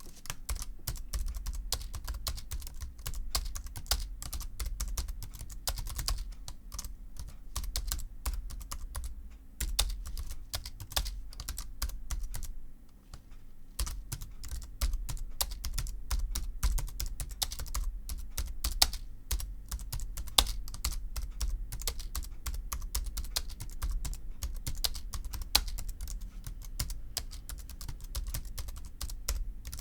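Continuous fast typing on a TypeMatrix split ortholinear keyboard with low-profile chiclet keys: a dense run of key clacks, with a short pause a little before halfway.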